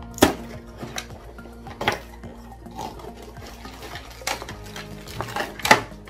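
Cardboard advent calendar door being pushed and prised open by hand, giving a handful of sharp cardboard cracks and knocks, the loudest one near the end.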